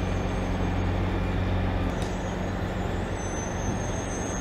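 A heavy engine or machine running steadily, a low hum over a broad rush of noise, with a faint click about two seconds in.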